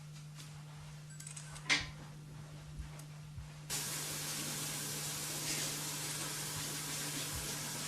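A small sharp click about two seconds in, then a handheld hair dryer switched on about halfway through, blowing with a steady hiss.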